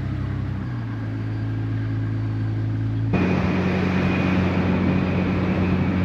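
Car engine running steadily while driving. Its note steps slightly lower about a second in, and about three seconds in the sound changes abruptly to louder, rougher engine and road noise.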